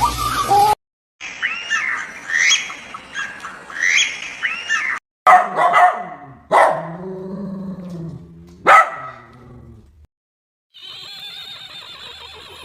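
Dog barking a few sharp times, with higher rising-and-falling yips or whines before the barks, heard in short separate clips split by brief silences.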